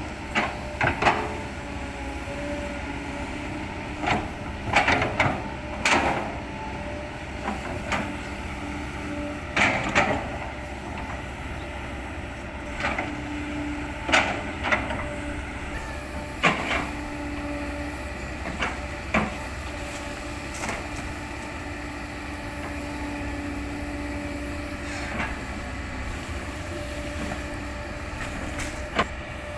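Kobelco excavator running steadily with a hydraulic whine, broken by irregular sharp cracks and knocks as oil palm trunk wood is chopped and split.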